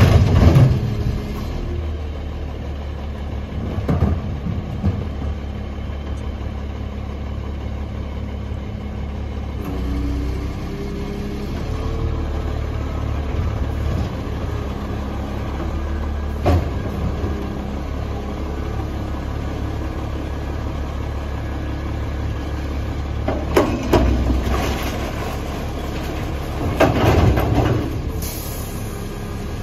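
Mack LE front-loader garbage truck with a Curotto-Can cart arm, its diesel engine running steadily at a low idle-like hum. Several sharp clanks and knocks, including one right at the start and a louder cluster near the end, come from the cart-handling gear.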